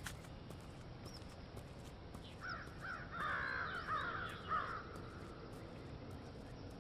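Crows cawing over faint outdoor background noise, with a cluster of overlapping calls in the middle lasting about two seconds.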